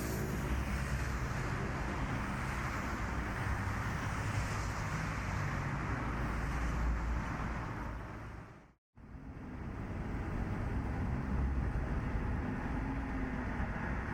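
Motorcycle running on the road, a Yamaha SR400 single-cylinder engine's low rumble under steady road and wind noise. The sound fades out to silence for a moment about nine seconds in, then returns.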